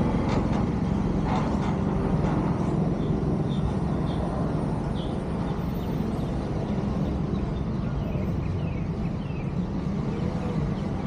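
Steady low ambient rumble with a few brief high chirps in the middle.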